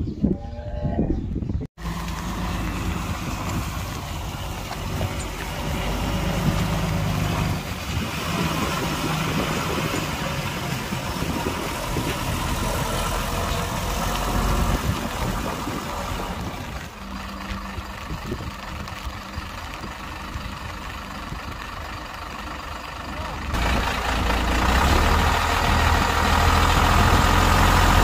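A cow lows briefly, then the sound cuts off sharply. After that comes the steady running of a heavy multi-axle diesel cargo truck's engine at idle, which gets louder and heavier about three-quarters of the way through.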